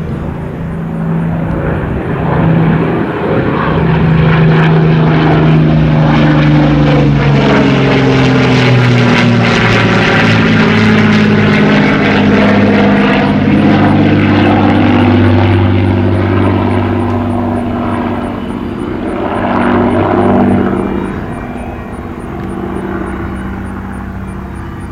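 Propeller-driven WWII warbird with Rolls-Royce Merlin piston power making a fly-by. The engine drone builds, stays loud through the middle while its pitch slides steadily down as the plane passes, then eases off near the end.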